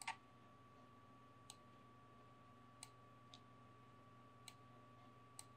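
Near silence broken by about six short, sharp computer mouse clicks, spaced roughly a second apart, over a faint steady hum.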